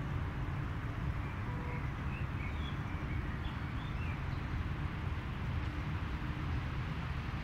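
Outdoor park ambience: a steady low rumble, with a few faint bird chirps from about one to four seconds in.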